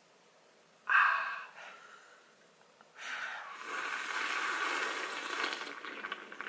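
A person slurping coffee noisily: a short, loud slurp about a second in, then a longer gurgling, hissing slurp from about three seconds on that sounds like a coffee machine.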